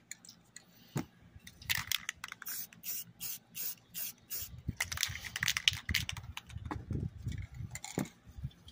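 Aerosol cans of flat camouflage spray paint hissing in several short bursts as paint is sprayed on, with sharp clicks from the cans being handled and set down.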